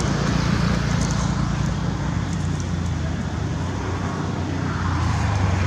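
An engine running steadily, a low hum with hiss that doesn't change.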